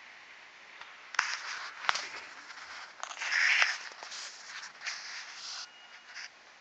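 Phone microphone handling noise: rustling and rubbing with a few sharp clicks as the phone is turned in the hand.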